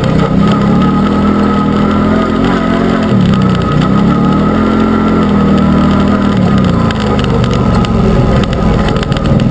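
Arctic Cat Wildcat UTV's engine revving up and down while driving off-road. The pitch dips sharply about three seconds in, climbs again, sags around six to seven seconds, and rises once more near the end.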